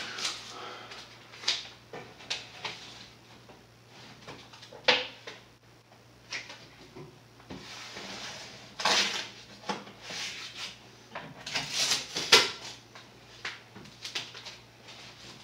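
Irregular knocks, clicks and rustling of hands working against a wooden kitchen cabinet frame while masking it with tape and paper, with a sharper knock near the end.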